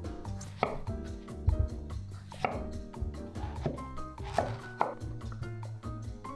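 Chef's knife cutting through a peeled zucchini and knocking on a wooden cutting board, a handful of sharp cuts roughly a second apart, over light background music.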